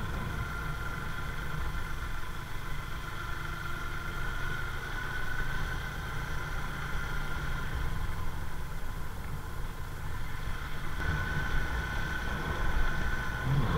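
Motorcycle engine running steadily while riding along a road, a continuous low rumble with a steady whine above it and road and wind noise.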